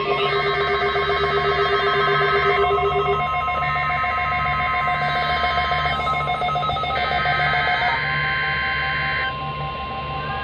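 Emergency Alert System header data for a Required Weekly Test: three harsh warbling bursts of digital tones, each about two and a half seconds long with about a second between them. Several steady tones and a low pulsing hum run underneath.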